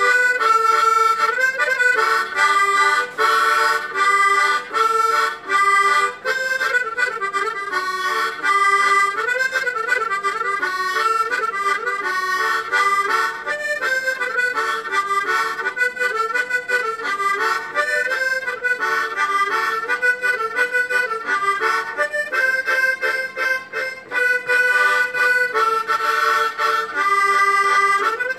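Solo harmonica playing a Sardinian traditional dance tune, a melody with chords over a moving lower line, in a steady rhythm without a break.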